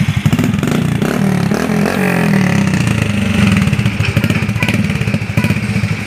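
Honda Future 125's single-cylinder four-stroke engine running through a freshly fitted aftermarket performance exhaust with its silencer insert still in place. It is revved up and down a few times in the first couple of seconds, then runs on at a steadier, lower speed with a quick, even exhaust beat.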